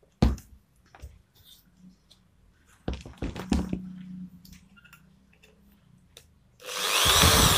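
Knocks and clicks of an aluminium strip being shifted and set on a plywood board. About seven seconds in, an electric hand drill starts and bores a rivet hole through the aluminium strip, loud, with its high whine wavering up and down.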